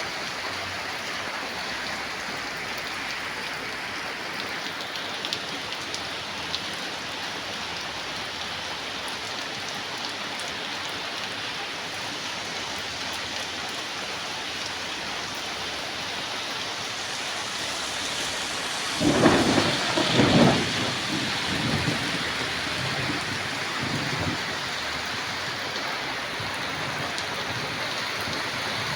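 Steady heavy rain falling, with a loud clap of thunder about two-thirds of the way through that rolls on for a few seconds before fading back into the rain.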